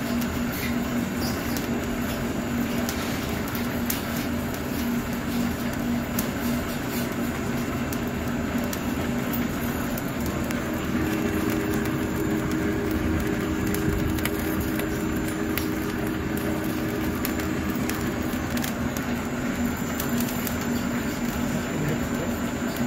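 Welly Puffing Machine S-3 grain snack extruder running steadily while puffing brown rice through a flat nozzle: a constant motor and screw hum under a dense noise. A second, slightly higher hum joins about halfway through and drops out a few seconds before the end.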